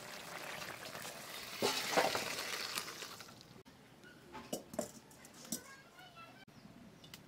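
Hissing and crackling from a wok of boiled bottle gourd as it comes off a wood-fired clay stove, loudest about two seconds in. After about three and a half seconds it drops away to a quieter stretch with a few light clinks and knocks of utensils.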